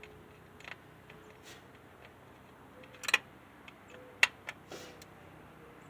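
A few sharp, separate clicks and taps of small screws and a Phillips screwdriver being fitted into the broom head, the two loudest about three and four seconds in.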